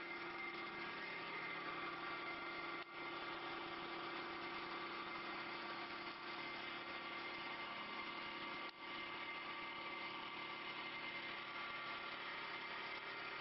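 CNC wood lathe running: a steady machine hum with several held tones, including a high whine, over a dense hiss. It drops out briefly twice, about three seconds in and again near nine seconds in.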